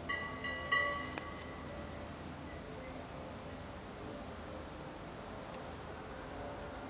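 Open-field ambience with insects chirping high in short bursts that come and go several times. A brief bell-like ring sounds in the first second or so.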